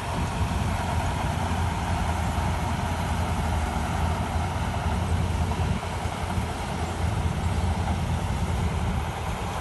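Heavy engine running steadily with a deep low rumble and a faint steady whine.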